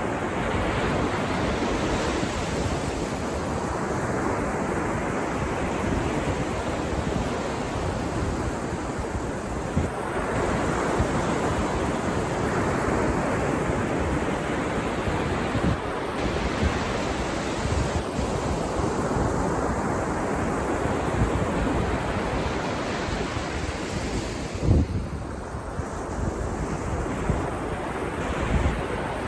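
Ocean surf breaking and washing up a beach, a continuous rush that swells and eases every several seconds. Wind buffets the microphone, with a short low thump about three-quarters of the way through.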